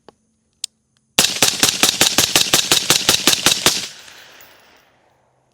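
Rifle firing a fast burst of about twenty shots, roughly eight a second, beginning about a second in, followed by echo dying away over the next second or so.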